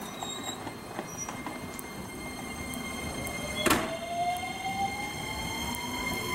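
JR 287 series limited express electric train pulling out, its traction motors whining in a tone that rises steadily in pitch as it picks up speed. One sharp clack comes a little past halfway.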